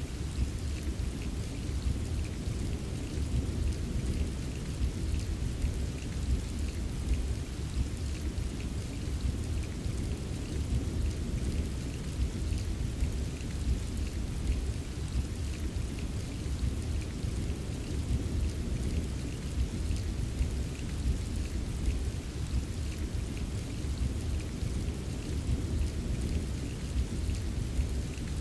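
Steady rain ambience: an even hiss of rainfall dotted with many small drop ticks, over a continuous low rumble. The level holds steady, with no single loud event.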